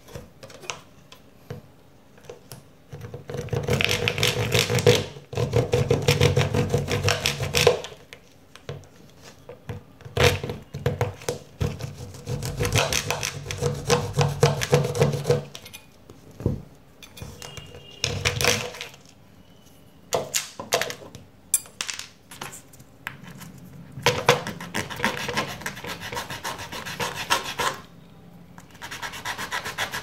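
A knife scraping and shaving a plastic pen cap in repeated strokes. The strokes come in bursts of one to three seconds with short pauses between them, and a few sharp clicks.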